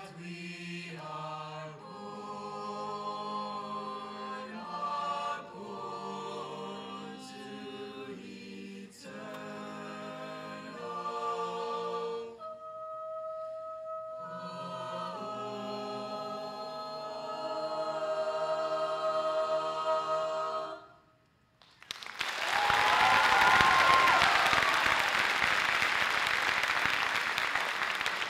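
A cappella vocal group singing in harmony, with one voice holding a long note partway through. The singing stops about three quarters of the way in, and the audience breaks into loud applause with a cheer.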